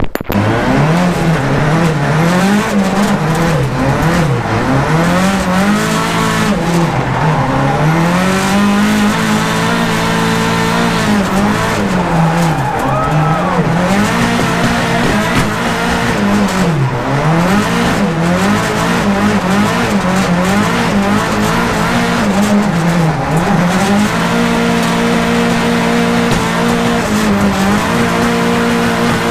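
Turbocharged Mercedes M111 2.3-litre four-cylinder engine in a drifting BMW E92, heard from inside the cabin, revving up and down again and again with tyre squeal. For the last few seconds it holds steady at the top of its revs.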